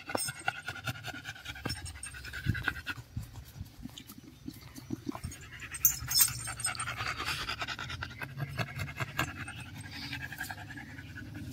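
American bully dog panting rapidly.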